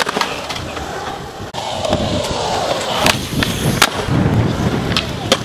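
Skateboard urethane wheels rolling over concrete in a steady rumble, with several sharp clacks of the board hitting the ground.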